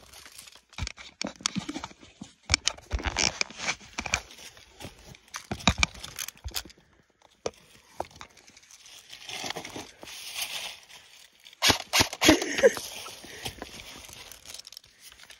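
Dry leaves crunching and rustling underfoot and under handling, mixed with knocks and rubbing of a handheld phone and a webbing strap. Sharp clicks and knocks come throughout, with the loudest cluster about twelve seconds in.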